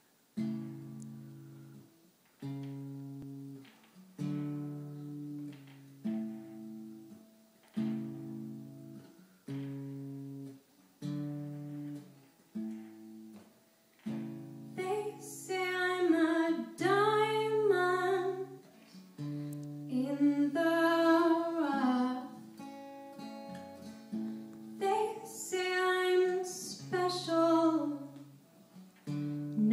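Guitar playing a slow intro, one sustained chord struck about every two seconds; about halfway through a woman's voice comes in singing over the chords.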